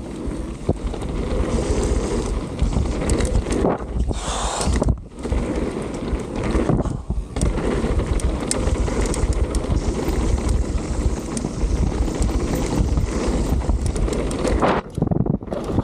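Wind buffeting the microphone and a mountain bike's tyres rolling fast over a packed dirt trail, with clicks and rattles from the bike. The noise drops briefly about five seconds in and again near the end.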